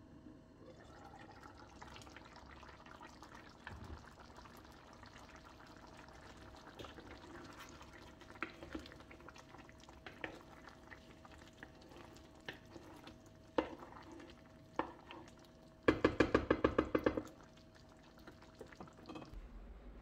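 Artichoke and pea stew simmering in a pan while a wooden spoon stirs it, with scattered knocks of the spoon against the pan. Near the end comes a quick run of about ten sharp knocks, the loudest sound.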